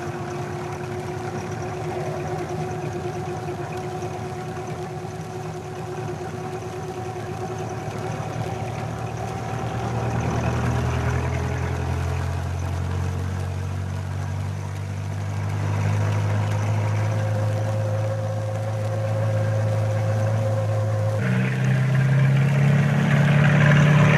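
A motor vehicle engine running steadily, growing louder about ten seconds in, then stepping up in pitch and loudness a few seconds before the end as it is revved or put under more load.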